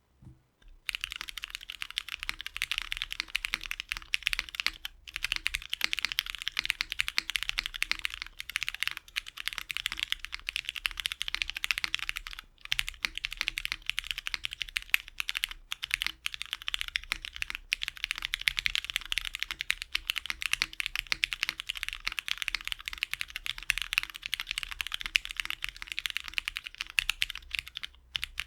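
Fast continuous typing on a mechanical keyboard with lubed and filmed Cherry MX Black Hyperglide linear switches in a polycarbonate Tofukorn v2 case with ABS keycaps, starting about a second in with a few brief pauses.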